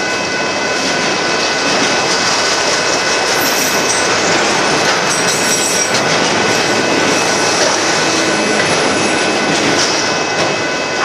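Autorack freight cars rolling past close by: a loud, steady rumble of steel wheels on rail, with a thin high squeal from the wheels held throughout.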